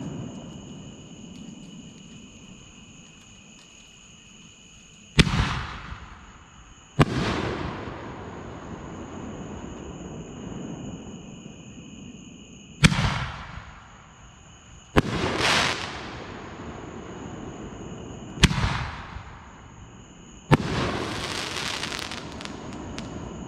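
5-inch aerial canister shells going off: six sharp bangs a few seconds apart, each trailing off in a long echo, the last followed by a longer hissing tail. Crickets chirp steadily throughout.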